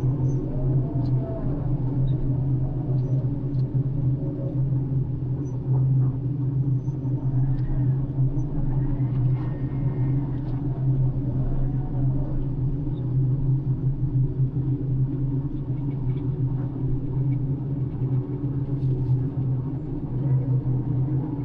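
Floating crane's engine running with a steady, continuous low drone, heard from the crane cabin. A few faint tones rise and fall over it.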